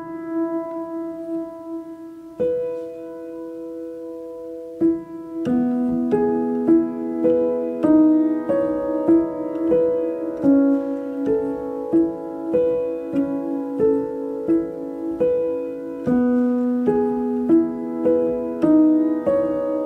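Background piano music: slow single notes at first, then a gentle, steady repeating pattern of struck notes from about five seconds in.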